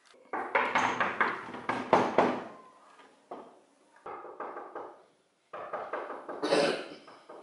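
Rapid knocking on a door in three bursts, the first the loudest.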